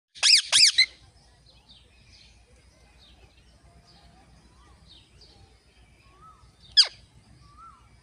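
Rose-ringed parakeets (Indian ringnecks) calling: two loud, sharp calls in the first second and one more near the end that falls steeply in pitch. Faint chirps and short whistled notes of other birds carry on in between.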